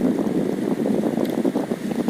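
Steady rain during a thunderstorm, with wind buffeting the microphone: a dense, even rushing noise, strongest in the low-middle range, with no thunderclap.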